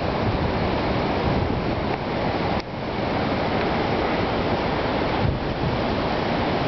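Tropical-storm wind gusting hard over the microphone, a loud steady rush with surf pounding beneath it. The rush drops off for a moment about two and a half seconds in.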